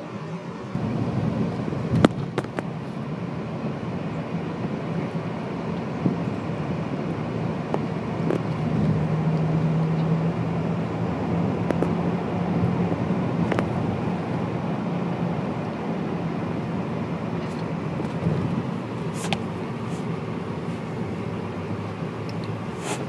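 Car driving: a steady engine hum and road noise, the hum stronger in the middle stretch, with a sharp click about two seconds in and a few fainter clicks later.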